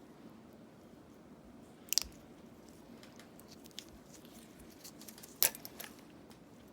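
Pedicure tools working through thick dry skin on a foot: a few sharp clicks and crunches, the loudest about two seconds in and again about five and a half seconds in, over a faint steady hum.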